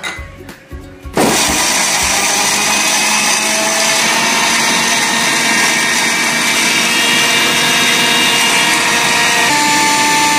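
Electric mixer grinder (Havells mixie) with a steel jar, switched on about a second in and running steadily at full speed, grinding onion, green chilli, garlic, ginger and whole spices into a paste.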